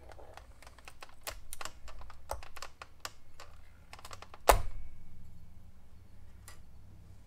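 Hard plastic clicking and scraping as a plastic trim tool pries at the speedometer needle on an instrument cluster's plastic face. The run of quick clicks ends about four and a half seconds in with one loud, sharp snap as the needle pops off its stepper-motor shaft.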